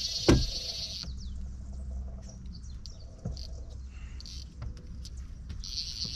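Fly reel drag buzzing as a hooked snook runs and pulls line off the reel. It sounds in two spells, stopping about a second in and starting again near the end, with a single loud thump about a third of a second in. Birds chirp briefly in between.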